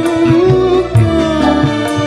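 Loud music played back through a PA sound system under test: a sustained melody line over regular low drum hits.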